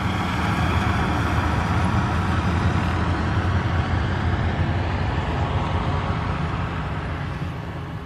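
Steady low engine rumble, fading slightly near the end.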